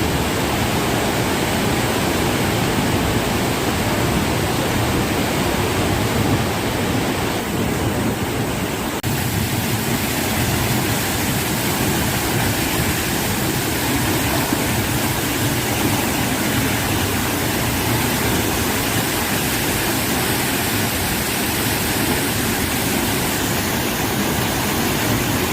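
Floodwater of a swollen river rushing past, a loud steady wash of water noise.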